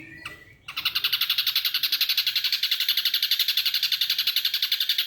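Ashy drongo giving a long, rapid, even trill of about a dozen notes a second, starting just under a second in: a mimicked kingfisher (tengkek) rattle.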